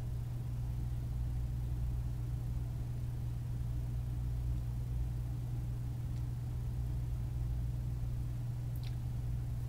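Steady low hum, unchanging throughout, with one faint brief click near the end.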